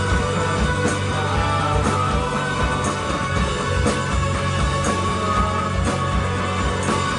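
Live rock band jamming in a psychedelic rock style, with guitar over a steady, repeating bass line.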